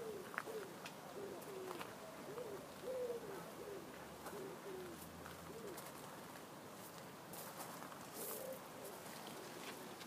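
A pigeon cooing in a long run of short, low notes that rise and fall. The notes are strongest for the first five seconds or so, fade, and come once more near the end. Faint ticks sound over them.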